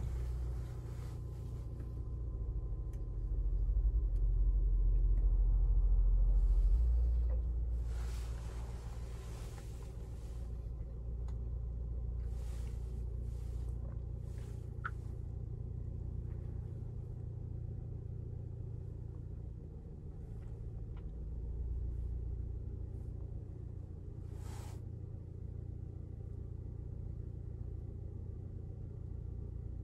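Low, steady rumble of a car on the move, swelling about four to seven seconds in, with a few short hissing swells over it.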